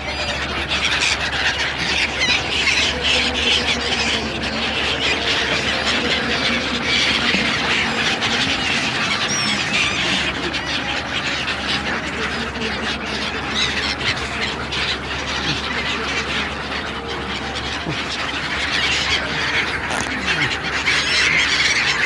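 A large flock of migratory birds calling, many short squawks and cries overlapping in a dense continuous chatter, with a steady low hum beneath.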